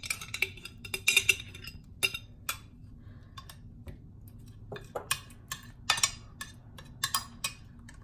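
A metal knife clinking and scraping against the inside of a glass sauce jar, then a metal spoon scraping and tapping on the bottom of a glass baking dish as tomato sauce is spread. The clinks come in quick clusters, with a quieter stretch midway.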